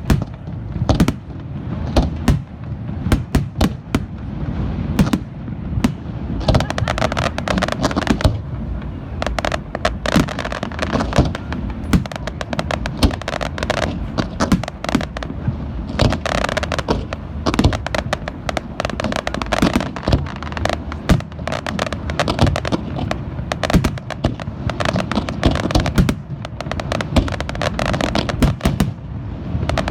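Fireworks display: a dense, continuous barrage of shell bursts, bangs and crackling with a low rumble underneath.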